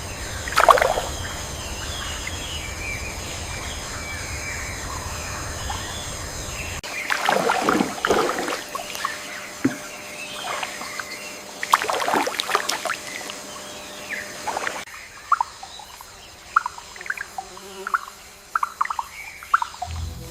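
Rainforest ambience in rain: a steady wash of falling water, then, after an abrupt change, two bouts of splashing water, followed by scattered short bird chirps near the end.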